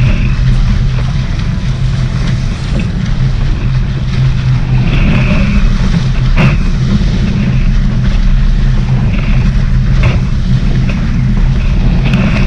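Wind buffeting the microphone and water rushing past a Nacra 500 catamaran under sail, loud and steady, with brief hissing swells of spray and a few sudden knocks or slaps.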